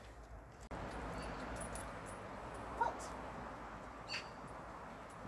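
Parson Russell Terrier giving one short whimper about three seconds in, over a steady background hiss; a light click follows about a second later.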